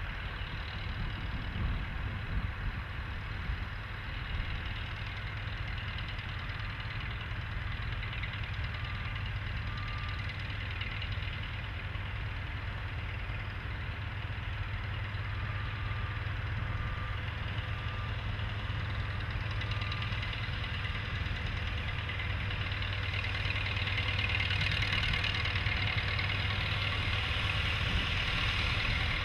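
Ruston & Hornsby diesel shunter DS1174's engine running as it hauls a brake van slowly along the track, a steady low rumble that grows louder in the second half as the locomotive draws near.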